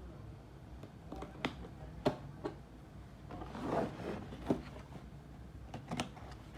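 Hands handling a laptop's box and packaging: a series of light taps and knocks, with a brief rustling rub a little past the middle.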